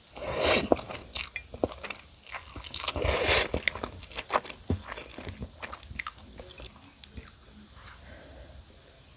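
Biting into and chewing crispy Goobne Gochu Basasak fried chicken: two loud crunching bites, about half a second and three seconds in, then smaller chewing crunches that die down near the end.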